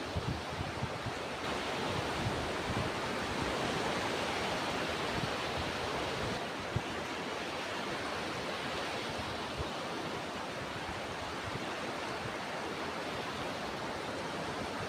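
Ocean surf: a steady, even rush of breaking waves and washing water.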